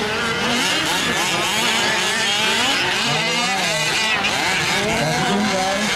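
Several 1/5-scale RC off-road trucks' small two-stroke petrol engines buzzing and revving at once, their pitches rising and falling over one another as they race.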